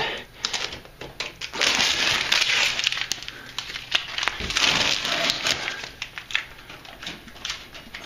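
Crinkling and crumpling of tape and plastic wrap being peeled off a taped-over air vent after a duct leakage test, a crackly run of small tears and rustles, busiest from about a second and a half to six seconds in.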